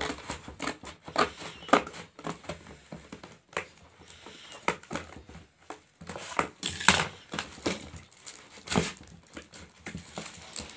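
Plastic courier pouch crinkling and rustling in irregular crackles as it is handled and cut open with scissors.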